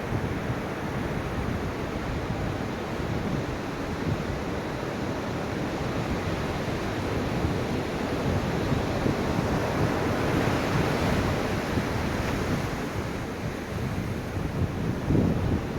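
Ocean waves washing onto a shore: a continuous rush of surf that swells about ten seconds in as a wave breaks, then eases.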